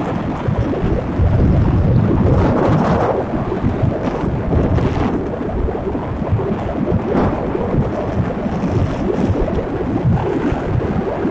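Steady, loud wind rumble buffeting the microphone of a camera riding on a moving motorbike, with road noise mixed in.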